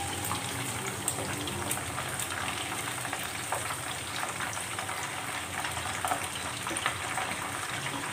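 Chicken pieces deep-frying in hot oil in a wok: a steady sizzle with many small scattered crackles and pops. The pieces are browned and near the end of frying.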